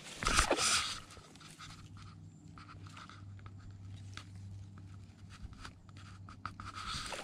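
Clothing and reed stems rustling against a body-worn camera's microphone as the wearer crouches in the grass. It is loudest in the first second and again near the end, with faint scattered rustles and clicks between.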